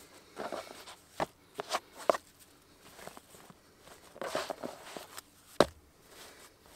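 Hands pressing and patting bread dough flat on a plastic cutting board: irregular soft thumps and scuffs, with one sharp knock about five and a half seconds in.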